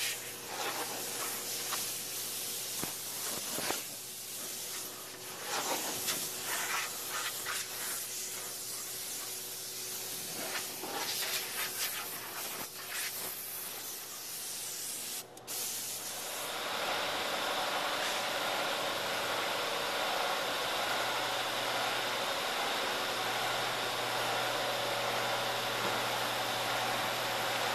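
Spray gun applying polyurea spray-in liner, hissing in uneven surges as it coats the boat's interior. A little past halfway the sound changes to a steady, denser hiss with a faint low hum underneath.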